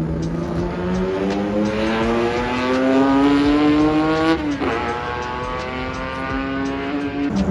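Racing car engine accelerating hard past on track, its note climbing steadily and then dropping sharply about halfway through as it shifts up, before pulling again.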